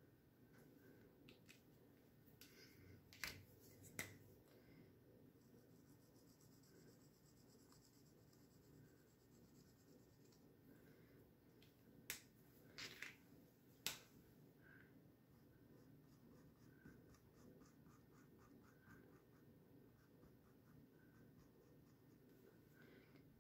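Faint scratching of Expo dry-erase markers drawing on a whiteboard, ending in a quick run of short hatching strokes, about three or four a second. A few sharp clicks stand out twice, around the moments the markers are swapped.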